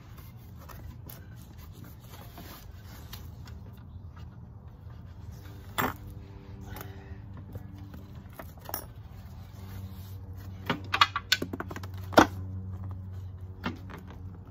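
Scattered clinks and knocks of small metal fittings and teak chair parts being handled during assembly. They come singly at first, then in a quick cluster a little after the middle.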